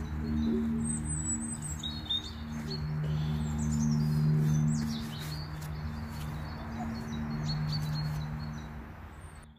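Small songbirds chirping and twittering over a steady low hum that swells and eases off, with a few light clicks; everything fades out near the end.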